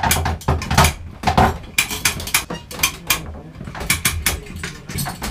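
Hand-cranked come-along ratcheting as it is worked to hoist a timber bridge loaded with an engine block, giving a run of sharp, uneven clicks and clacks, a few a second.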